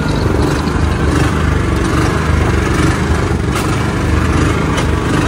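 An engine on a fishing boat running steadily with a low, even hum, with a couple of faint brief ticks over it.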